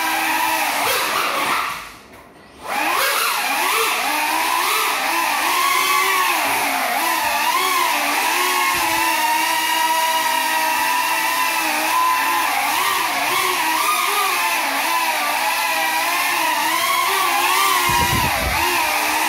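Small ducted FPV quadcopter flying, its motors whining in several high tones that waver up and down with the throttle. The whine dies away briefly about two seconds in, then spins back up. It is flying on broken propellers.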